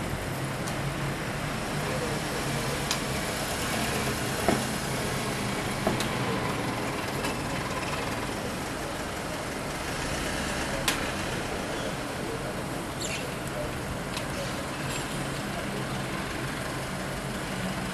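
Tow truck's engine idling steadily, with a few sharp clanks from the wheel-lift gear as the car is secured to it.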